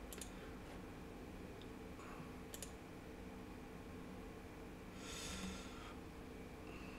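Faint computer mouse clicks, a couple of sharp clicks in the first few seconds, over a low steady electrical hum. About five seconds in there is a soft hiss lasting about a second.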